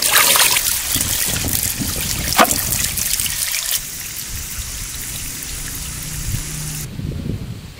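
Water trickling and splashing, with the sound changing abruptly a little before halfway and again near the end.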